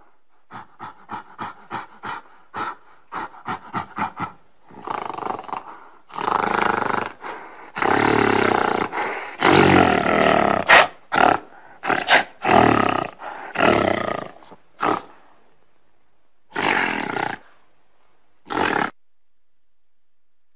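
Loud animal calls: a quick run of short grunts at about three a second, then a series of longer, louder drawn-out calls, and two shorter ones near the end.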